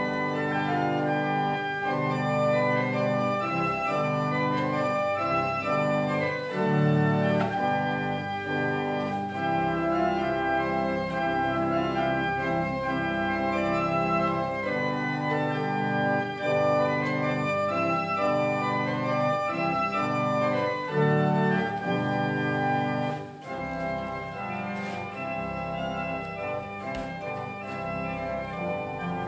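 Organ playing a slow piece in held chords, the notes changing every second or so.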